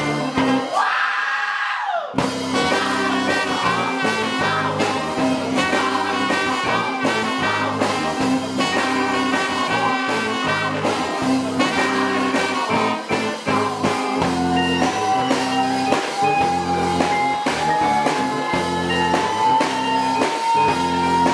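A live funk band with trumpet plays a steady groove. Early on the bass and drums drop out for about a second and a half under a rising sweep, then the full band crashes back in. From the middle a long held note slowly rises in pitch.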